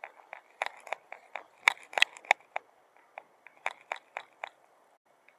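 Footsteps: a quick, uneven run of sharp taps that stops near the end.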